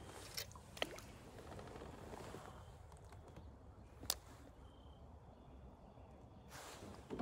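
Faint ambience aboard a fishing kayak on still water, with a few sharp light clicks and a brief soft slosh near the end.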